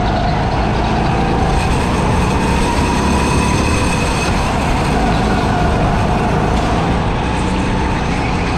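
Go-kart engine running at speed, heard from on board, its pitch rising and falling as the kart speeds up and slows.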